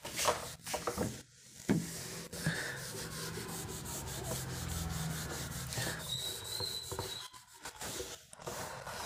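Handwriting: a steady run of scratching, rubbing strokes as someone writes out notes.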